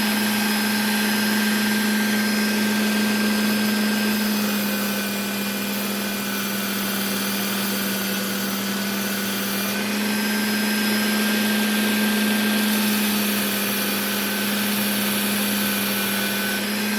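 Work Sharp Ken Onion Edition belt sharpener running with a steady motor hum while small whittling knife blades are drawn across its Trizact abrasive belt to raise a burr.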